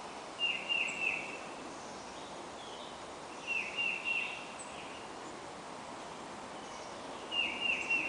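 A songbird singing a short phrase of three quick down-slurred whistled notes, repeated three times about every three and a half seconds, with a few fainter calls from other birds over a steady background hiss.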